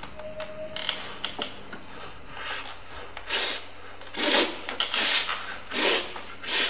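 Rustling and rubbing noises: a few light clicks near the start, then several short rasping bursts in the second half.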